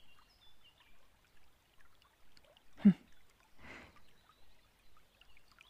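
Background ambience of a stream trickling, with faint high bird chirps. About three seconds in a woman's voice gives a short hummed "hm", followed by a breathy exhale.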